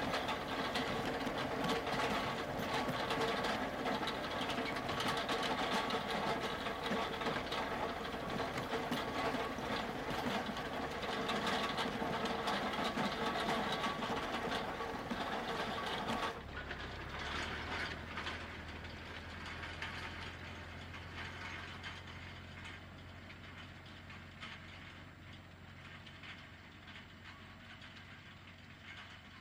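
Close up, the steel discs and frame of a Strumyk 2.4 disc harrow rattling and clattering as they cut through stubble behind the running Ursus C-392 diesel tractor. About two-thirds of the way through, the sound cuts to the tractor heard from across the field: a low, steady engine drone that fades as it draws away.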